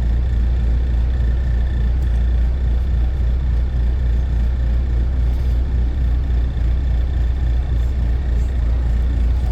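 Steady low rumble of road and engine noise inside a moving car's cabin, with a faint steady high-pitched tone.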